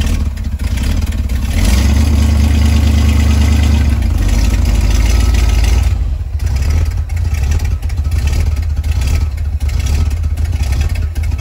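1967 Corvette's V8 engine running, raised in speed about two seconds in and held for about four seconds, then dropping back to idle.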